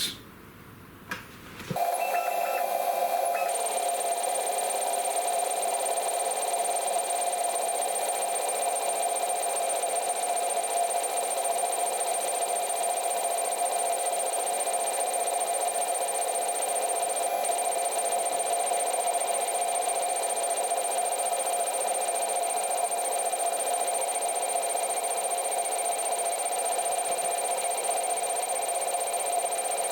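100 W CO2 laser engraver running a test job: a steady machine hum with a thin, constant high whine, starting about two seconds in.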